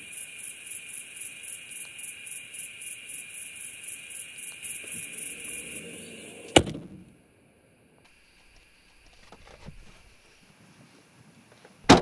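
A car boot lid is pulled down and slams shut about halfway in, over a high, pulsing insect chorus of about four pulses a second. The chorus stops with the slam, and a second sharp slam comes near the end.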